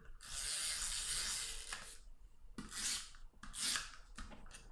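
Sheets of cardstock rubbing and sliding against each other and the cutting mat as glued panels are aligned and pressed together by hand: one long rub over the first couple of seconds, then a few short ones.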